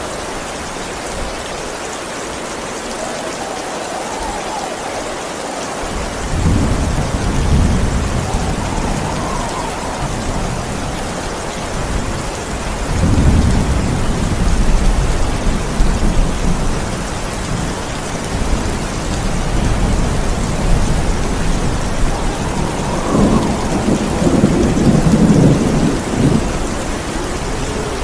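Steady heavy rain with thunder rolling over it: deep rumbles set in about six seconds in, come back twice, and the loudest roll comes near the end.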